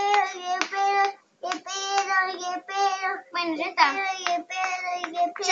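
A young child singing in short, level held notes with brief pauses.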